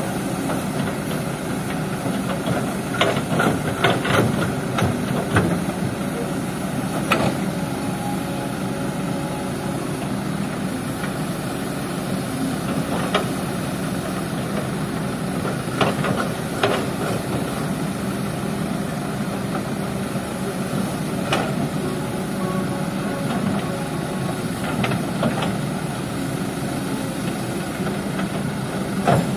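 Kobelco crawler excavator's diesel engine running steadily as it works its bucket in the river, with scattered sharp knocks, several in quick succession a few seconds in.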